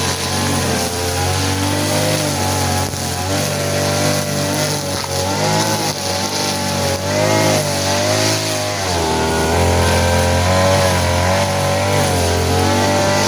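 Small engine of a grass-cutting machine running under load. Its pitch wavers up and down as the cut varies, and the note shifts about nine seconds in.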